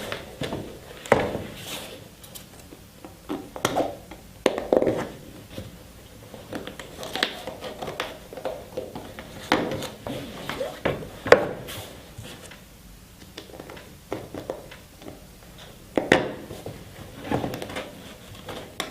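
A softbox's heavy fabric rustling while its support rods are bent and slid into the slots around its outside, with irregular sharp knocks and taps as the rods and frame are handled.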